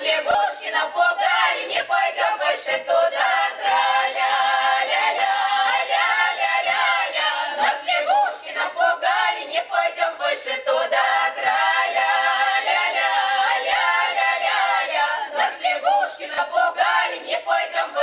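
Russian village-style folk ensemble, several women's voices with one man's, singing a comic Saratov-region song a cappella in full-voiced harmony.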